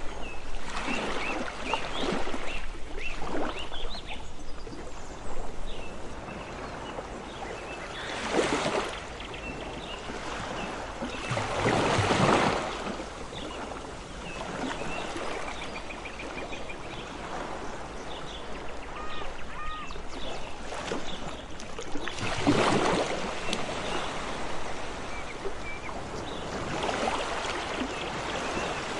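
Ocean waves washing in, each surge building and fading every few seconds, the strongest near the middle and about two-thirds through. Faint short bird calls are heard between the waves.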